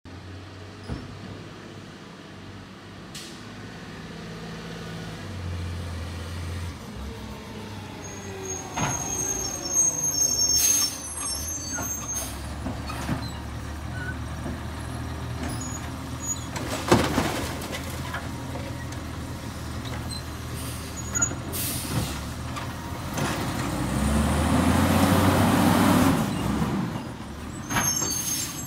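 Labrie Automizer automated side-loader garbage truck working curbside carts: its diesel engine revs up and down, with air brake hisses and metallic knocks, and a sharp bang about halfway through. The engine revs loudest near the end as the truck pulls ahead.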